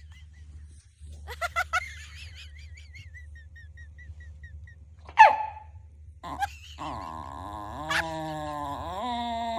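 Impatient dog whining: a few short cries, then a thin wavering high whimper, a single sharp bark about five seconds in, and a long drawn-out moaning vocalisation that bends in pitch near the end.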